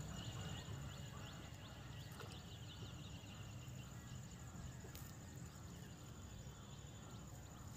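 Faint outdoor background noise with a steady low rumble and a thin, steady high-pitched whine, and no distinct events.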